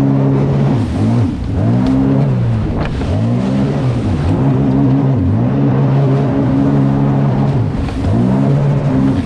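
Sea-Doo Spark Trixx personal watercraft's three-cylinder four-stroke engine running hard under throttle. The pitch drops and climbs back several times as the throttle is eased off and opened again.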